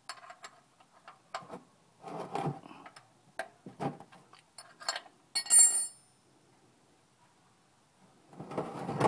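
Hand tools clicking and knocking against the oil drain plug of a 2000 Chevrolet Silverado 4.8 as it is being worked loose. About five and a half seconds in there is one loud metallic clink that rings briefly. A broad rush of noise starts near the end.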